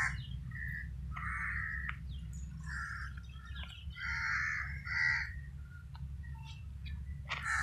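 Crows cawing repeatedly in short calls, over a steady low rumble.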